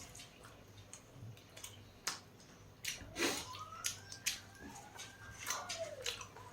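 Eating sounds close to the microphone: scattered wet mouth clicks and lip smacks while chewing food. Through the middle there is a faint tone that rises and falls.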